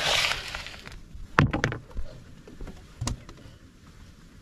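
Catfish pieces being handled in a metal bowl: a short rushing noise at the start, then two sharp knocks about a second and a half apart, with a few lighter clicks.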